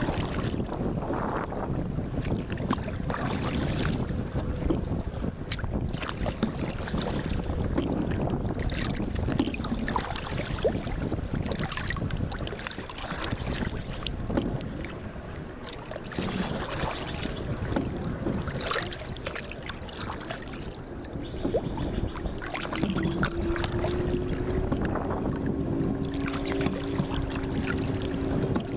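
Paddle strokes and water splashing and knocking against a small raft or kayak, with wind on the microphone. Over the last several seconds a steady low hum comes in.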